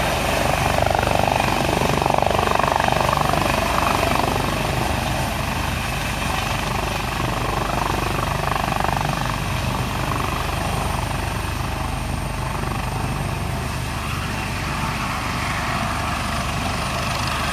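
Eurocopter AS365 Dauphin helicopter's twin turbines and main rotor running as it sets down and sits on the pad: a heavy, rapid rotor beat with a steady high whine over it. It is loudest in the first few seconds, then eases slightly to a steady ground run.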